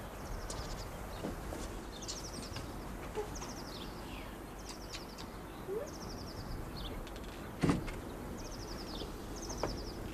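A small songbird singing the same short, high, falling trill over and over, roughly once a second, against faint outdoor background noise. A single sharp knock comes about three-quarters of the way through.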